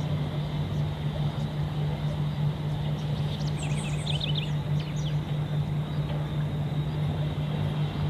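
A steady engine drone, with a few short bird chirps about halfway through.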